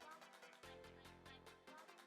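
Quiet background music with a steady beat and held bass notes.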